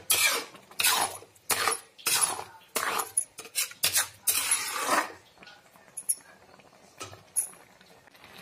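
Metal spoon stirring a thick, wet mixture of grated carrot, milk and sugar in a metal pan as gajar halwa cooks down. It scrapes the pan in rhythmic strokes, about two a second, for the first five seconds or so, then gives a few faint clinks.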